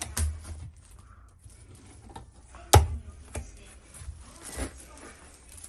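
Small wooden cabin cupboard with a key lock being handled: a few sharp knocks and clicks. The loudest knock comes near the middle as the door is shut.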